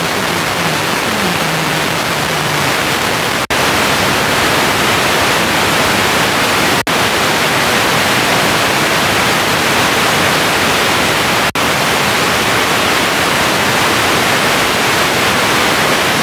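FM radio static: steady hiss from a phone's FM receiver tuned between stations with no signal, cut off briefly three times as the tuner steps to the next frequency.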